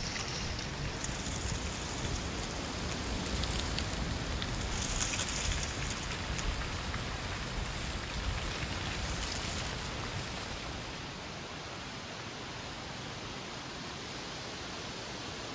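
Wind blowing through autumn trees, dry leaves rustling in a steady hiss; the wind's low rumble dies down about ten seconds in.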